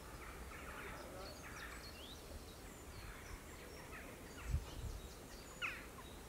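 Faint small-bird calls, short high chirps and quick rising whistled notes, over a quiet outdoor background. A low thump about four and a half seconds in, then a sharp click about a second later.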